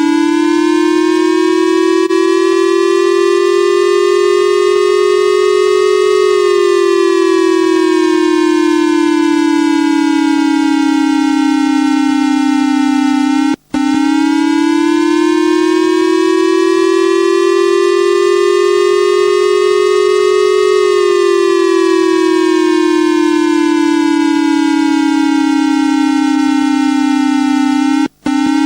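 Wailing civil-defence-style siren tone: one loud pitched tone slowly rising in pitch, then falling, about every fourteen seconds, twice, with a brief break after each cycle.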